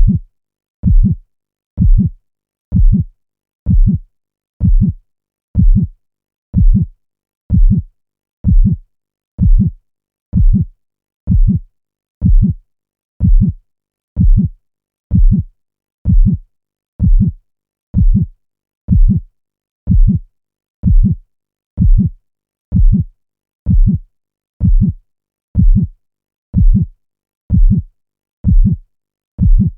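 Heartbeat sound effect: a low thump about once a second, steady and evenly spaced, with silence between beats.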